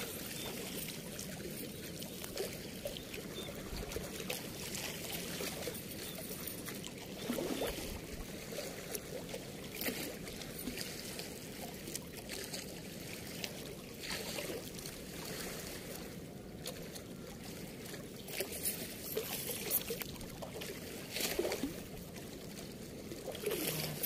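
Steady rush of water flowing over a weir, with scattered light clinks and rustles as a cast net's chain weights and mesh are handled.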